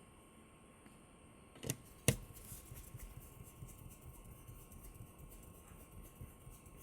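Two sharp clicks, about a second and a half and two seconds in, the second the louder, followed by a few seconds of faint irregular rattling and ticking, like small hard parts being handled.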